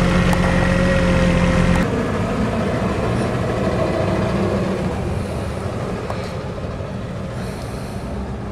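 A compact tractor's engine running steadily at work, with a faint whine over it; about two seconds in it cuts off abruptly, giving way to a quieter, steady rumbling noise.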